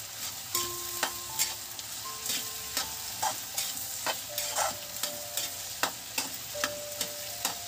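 A spoon scraping and clicking against a steel kadhai as okra, potato and onion pieces are stirred to coat them in salt and turmeric. The strokes come irregularly, one or two a second, some leaving a short ringing note, over a steady sizzle of frying in oil.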